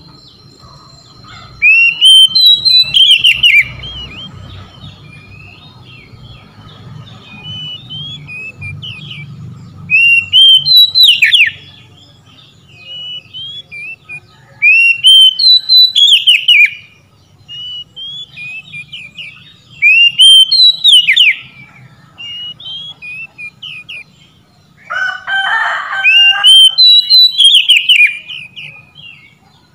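Oriental magpie-robin singing: loud bouts of quick, varied whistled notes, five of them a few seconds apart with softer notes in between, and one harsher, rasping note near the end.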